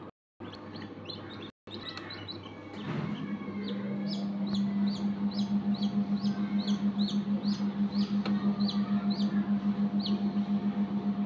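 Newly hatched chicks peeping: short, high, downward-sliding peeps at about two a second. From about three seconds in, a steady low hum that pulses about five times a second becomes the loudest sound.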